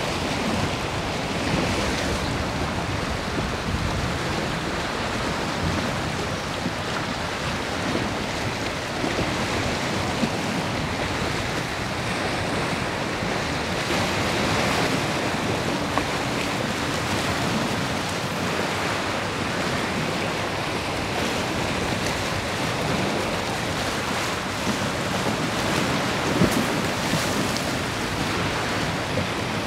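Steady wash of choppy sea water with wind, and wind rumbling on the microphone.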